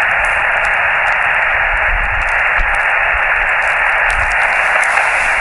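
Steady hiss of band noise from a portable QRP ham radio receiver on single sideband, with no station coming through while the operator listens for a weak, fading reply.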